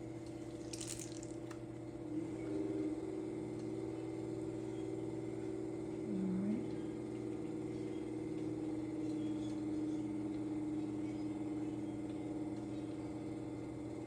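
Electric pottery wheel motor humming steadily as the wheel spins, with a short rise in pitch about two seconds in and a brief low swooping sound around six seconds in.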